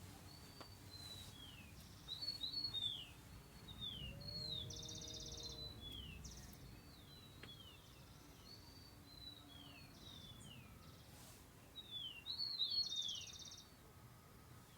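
Birds calling: a steady series of short, high, falling chirps about once a second, with two louder buzzy trills, one about two seconds in and one near the end, over faint low rumble.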